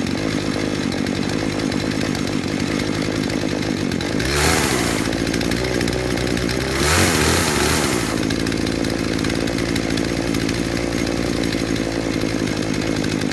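McCulloch CS420T two-stroke chainsaw running at idle after a cold start, revved briefly twice: about four seconds in and again near seven seconds.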